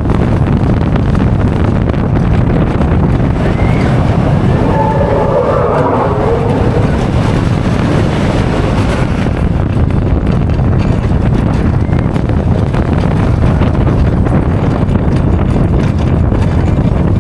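Roller coaster train running fast along its track, a loud steady rumble mixed with wind rushing over the microphone of a front-row rider.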